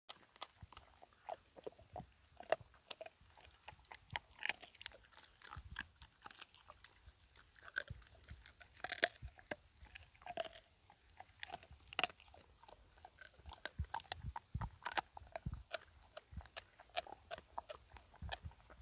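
A large dog chewing and gnawing raw bones, with irregular crunches and sharp cracks as its teeth break the bone.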